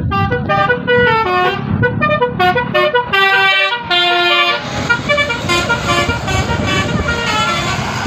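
A tour bus's telolet horn playing a quick melody of short stepped notes for about four and a half seconds, then the noise of the bus passing close by, with fainter horn notes.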